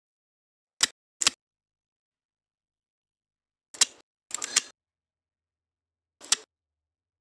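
Shears snipping: about six short, sharp snips, irregularly spaced, with silence between them and a quick cluster of snips a little past the middle.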